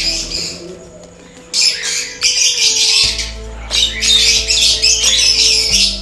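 Pigeons in a colony cage, heard as two bursts of wing flapping and calls, the first about a second and a half in and the second a little before the four-second mark. Background music with a steady bass runs underneath.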